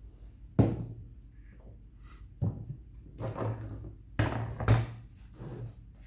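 Knocks and thuds of plastic containers handled on a tabletop: a measuring cup set down and a gallon jug picked up. The sharpest knock comes about half a second in, with more thuds over the next few seconds.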